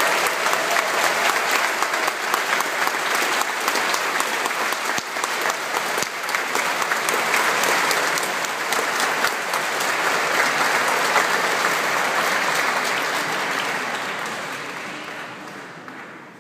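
Large audience applauding: dense, steady clapping that dies away over the last two seconds or so.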